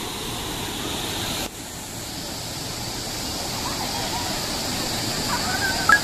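Steady rushing of a waterfall and its stream, dipping briefly about a second and a half in, then carrying on. Faint distant voices call out a couple of times in the second half.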